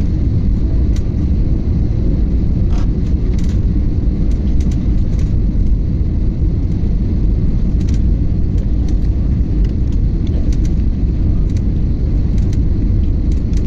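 Steady low rumble of a jet airliner cabin in flight on its descent to land: engine and airflow noise heard from a window seat, with a few faint ticks and rattles.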